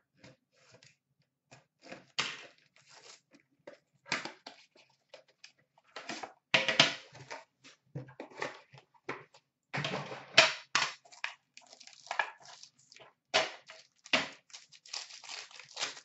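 Plastic shrink-wrap on an Upper Deck Premier hockey card box being torn off and crumpled by hand, in irregular crinkling bursts, loudest about six and a half and ten seconds in.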